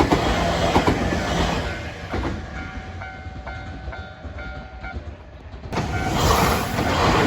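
Nankai Main Line train wheels clattering over the rail joints at a level crossing: a quick run of clicks, fading after about two seconds. A ringing tone repeats about twice a second, fitting the level-crossing warning bell, and then a second burst of train noise comes in suddenly near the end.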